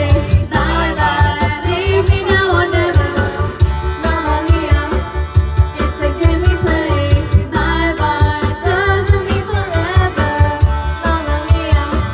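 Karaoke: a woman singing into a microphone over an amplified backing track with a steady beat.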